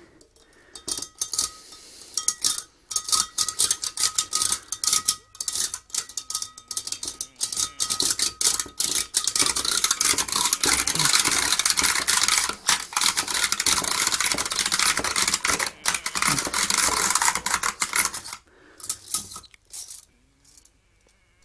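Metal whisk beating milk and water in a Pyrex glass measuring jug: fast, continuous rattling and scraping of the metal against the glass as the liquid froths. It gets more vigorous about halfway through and stops a few seconds before the end.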